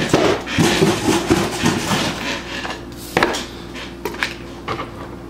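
Cardboard trading-card box being handled and slid on a wooden tabletop: rustling and scraping at first, a sharp knock about three seconds in, then a few light taps.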